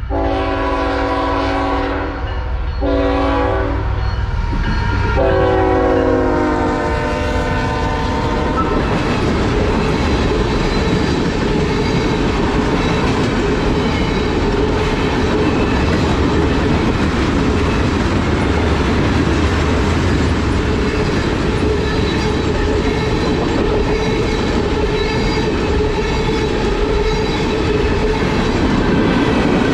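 Norfolk Southern diesel locomotive's air horn sounding in blasts: a long one, a shorter one, then a long final blast, in the pattern of a grade-crossing signal. After that, the steady wheel noise and clicking of loaded tank cars rolling past on the rails.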